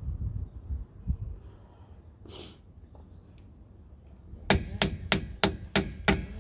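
A hammer tapping the metal hub dust cap home on a VW Beetle front wheel: six quick, ringing metallic strikes, about three a second, starting about four and a half seconds in.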